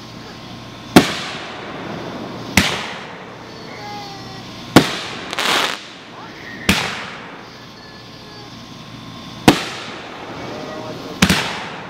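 Aerial firework shells bursting overhead: six sharp booms, spaced one and a half to two and a half seconds apart, each trailing off in a long echo. About five and a half seconds in, a short burst of hiss and crackle.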